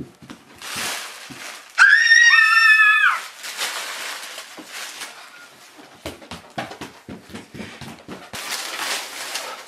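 A young child's shrill scream, held for about a second and dropping at the end, about two seconds in. Around it come rustling and scattered knocks, as of wrapping paper being handled and small bodies moving.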